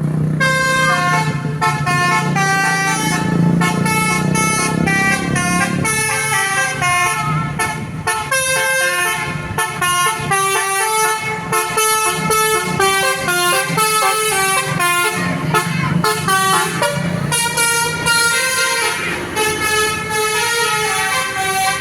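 Telolet horn, the multi-tone musical horn of an Indonesian tour bus, playing a fast tune of stepped notes without a break. A low steady drone runs under it for the first several seconds and returns briefly later.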